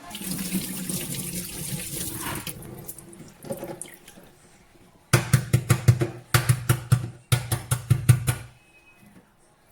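Kitchen tap running into a sink for a couple of seconds. About five seconds in comes a quick run of sharp knocks in several clusters, the loudest sounds here.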